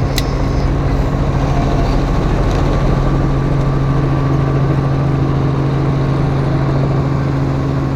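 Helicopter engine and rotor drone heard from inside the cabin: a loud, steady hum that holds the same pitch throughout.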